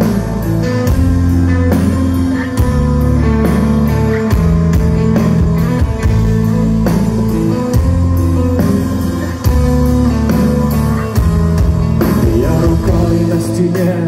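Live rock band playing through a loud PA: electric guitar over sustained bass notes and a steady drum beat.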